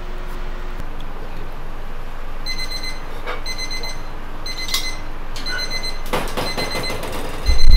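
Electronic kitchen timer alarm beeping: high-pitched beeps in short groups, about one group a second, starting a few seconds in. Near the end come a clatter of knocks and then a sudden loud low rumble.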